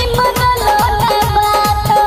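Instrumental break of a Bhojpuri devotional DJ song mix: a fast, steady beat of deep drum hits that drop in pitch, under a stepped melody line.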